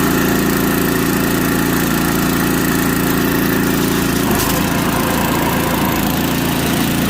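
Single-cylinder four-stroke 5 hp Tecumseh engine on an MTD snowblower running steadily after repair, now starting and running again; its note shifts slightly about four seconds in.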